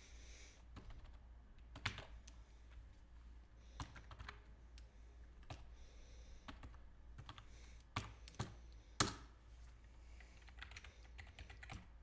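Typing on a COOKI K40 USB gaming keyboard while testing it: faint, irregular key clicks, with a few louder strokes standing out.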